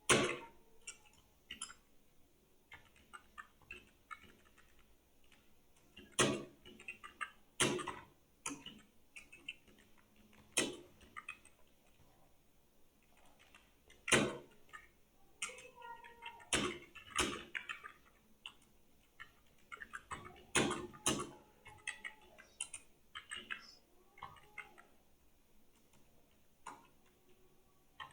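Computer keyboard keys clicking irregularly as someone types, with a few louder keystrokes standing out.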